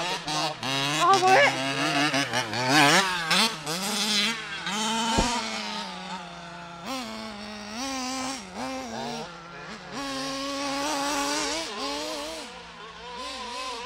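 HPI Baja 5B RC buggy's reed-cased two-stroke petrol engine revving up and down as it is driven, its pitch rising and falling with the throttle. It gets fainter after about six seconds as the buggy runs off into the distance, and there is one sharp knock about five seconds in.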